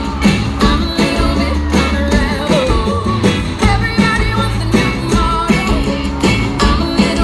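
Live country-rock band playing loud through a festival PA, heard from the crowd: a steady drum beat with electric and acoustic guitars.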